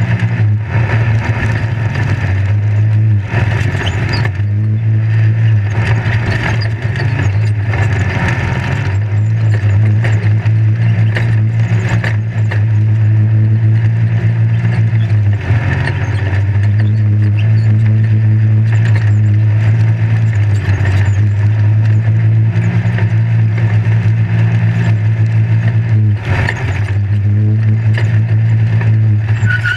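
Engine of a desert off-road race vehicle running hard at steady revs, heard from inside the open, roll-caged cab. Rattling and dirt noise run under it, and the engine note dips briefly three times as the driver lifts off.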